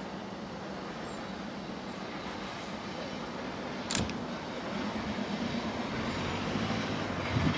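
Diesel locomotive hauling coaches on approach, its engine sound growing steadily louder over the second half. A single sharp click about four seconds in.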